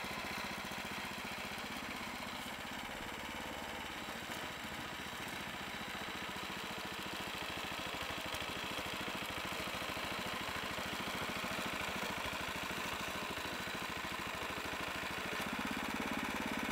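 Engine of a KADVI MB-1 walk-behind tractor running steadily, with a fast, even firing rhythm.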